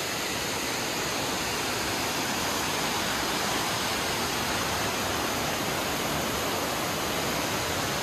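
A waterfall plunging into a rock pool: a steady rush of falling water.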